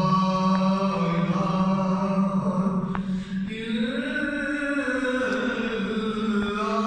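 Male devotional chanting in long, melodic held notes that step and slide in pitch, with a rise about four seconds in.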